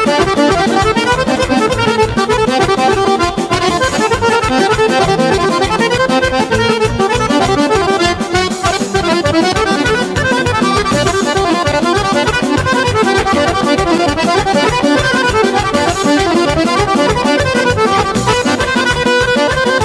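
Live Serbian folk band music led by accordion, playing a kolo dance tune with a steady, fast beat.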